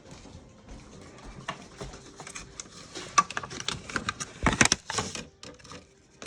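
Light clicking and knocking of things being handled in a kitchen, with a louder cluster of knocks about four and a half seconds in.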